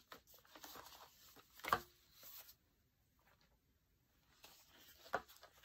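Faint paper handling: a handmade paper-and-lace junk journal being closed and turned over, with soft rustles and small taps and one louder handling noise about a second and a half in. The sound then drops out for about two seconds before a few faint clicks.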